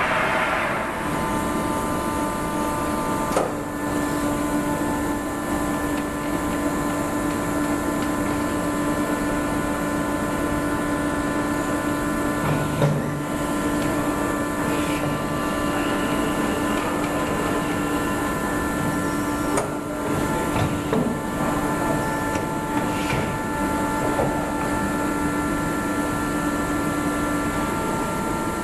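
Soraluce Soramill TL-35 bed-type milling machine running under power: a steady machine whine made of several held tones, one lower tone setting in about a second in and dropping out near the end, with a few light clicks.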